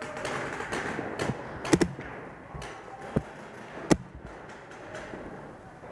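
Paintball markers firing in an indoor arena: a quick double pop about two seconds in, then single sharp pops near three and four seconds, over a shuffling background of players moving.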